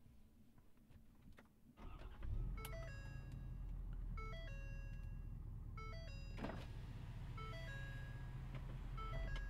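Ford F-450's 6.7-litre Power Stroke V8 diesel starting about two seconds in and settling into a steady low idle. Over it the truck's warning chime sounds a short multi-note pattern again and again, about every second and a half.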